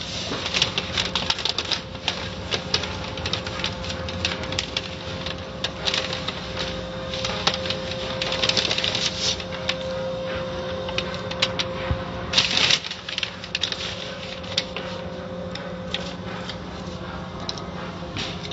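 Soft-cloth strips of an automatic car wash slapping and rubbing across the car's hood and windshield, heard from inside the car: rapid, irregular slaps over a steady machinery hum, with a thicker flurry of hits about twelve seconds in.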